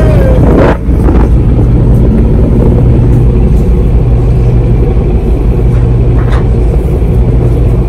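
Ship's engine running with a steady, loud low drone that holds an even pitch, briefly interrupted a little under a second in.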